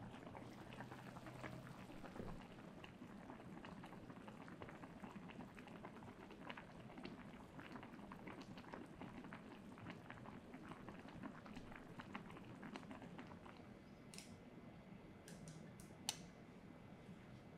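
Faint bubbling of soup boiling in a small electric pot, a steady fine crackle of bubbles that thins out near the end. A single sharp click about sixteen seconds in.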